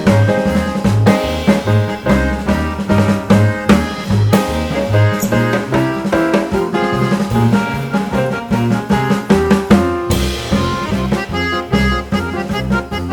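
Background music with a drum beat and brass, running without pause.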